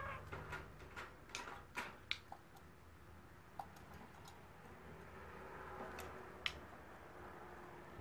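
Peach-faced lovebird moving about its wire cage: scattered light clicks and taps, with sharper ones about two seconds in and again past six seconds.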